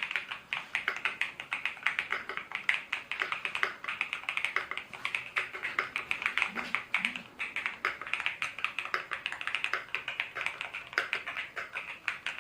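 Fast typing on the AKKO YU01 mechanical keyboard with its resin case: a steady, dense run of key clacks.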